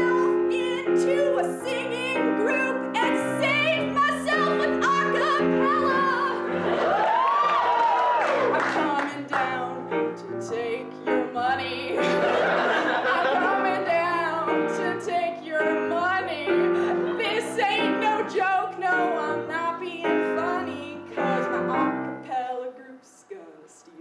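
A woman singing an improvised song with vibrato, accompanied by held chords on an electric keyboard. The music falls away near the end.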